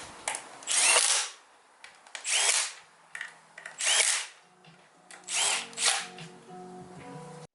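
Hand-held power drill or driver running in five short bursts of about half a second each, spinning up in pitch at the start of each, the last two in quick succession.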